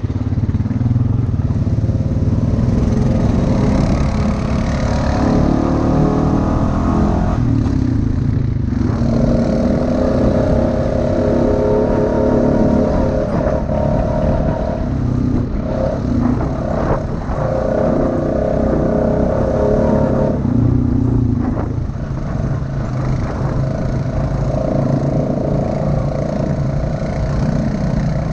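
ATV engine running while the quad is ridden along a trail, its pitch rising and falling with the throttle and easing off briefly a few times.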